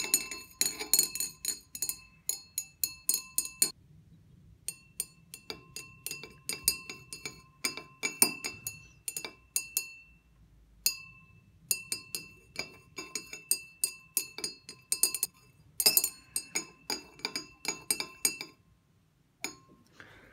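A stirring rod clinking against the inside of a glass laboratory beaker during vigorous stirring of a solution. The clinks come about three or four a second, each with a brief glassy ring. They break off briefly twice and stop near the end.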